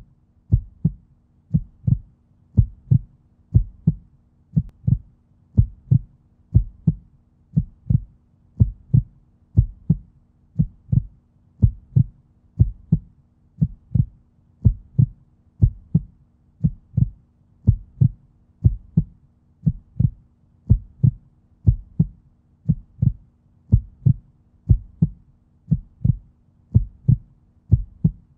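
A heartbeat-style background sound: low double thumps repeating evenly about once a second over a faint steady low drone.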